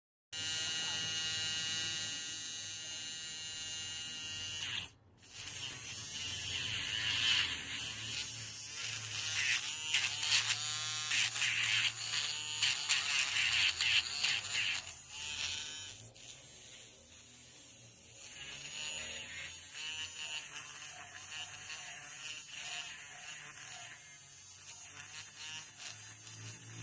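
Electric nail file (nail drill) motor whirring with a high, steady whine. It cuts out briefly about five seconds in and starts again, its pitch wavering and gliding as it runs. It is quieter in the last part.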